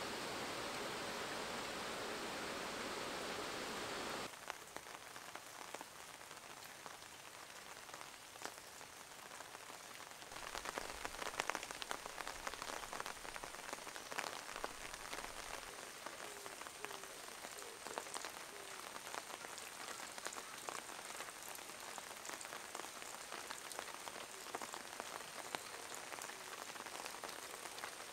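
Rain falling: a dense, steady hiss for the first four seconds, then it cuts to a quieter patter of many small drop ticks, which grows denser and louder about ten seconds in.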